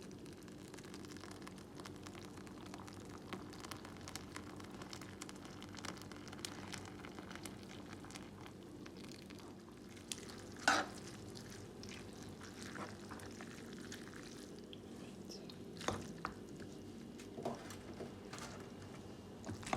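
A spoon stirring and scraping through macaroni and cheese sauce in a pot, with soft wet clicks and scrapes and two louder clinks near the middle and later on, over a steady low hum.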